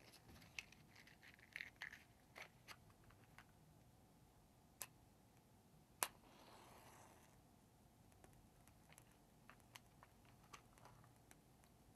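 Near silence with faint clicks and rustles of a matchbox being handled. About halfway through comes one sharper click followed by a brief soft hiss: a match struck to light a spirit lamp.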